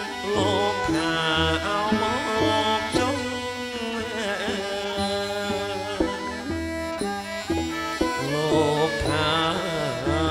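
Khmer traditional wedding music: a man sings into a microphone over drums and traditional instruments.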